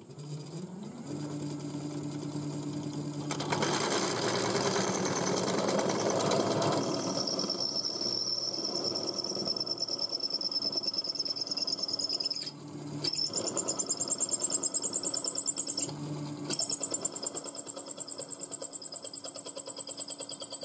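Old drill press driven by a hoverboard hub motor: the motor's whine rises as the spindle spins up, then holds steady while a twist drill bites into thin sheet steel with a harsh grinding. A high steady squeal from the cutting bit follows, broken by two short pauses, and near the end it pulses rapidly as the bit chatters through the steel.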